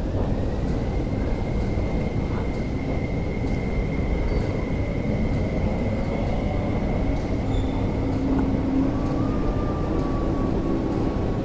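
MTR Tuen Ma Line train pulling out of an underground station platform behind the screen doors: a steady rumble of the train moving on the track, with a thin high whine throughout and a second, lower whine joining in the later part.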